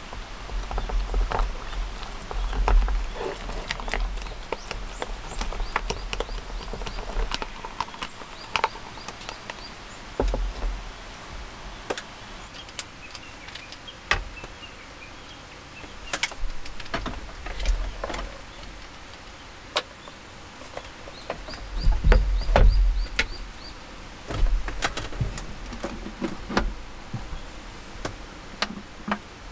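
Close handling sounds: chopsticks clicking and scraping in a cup, then a power cable being uncoiled and handled, with irregular clicks, knocks and a few low thuds.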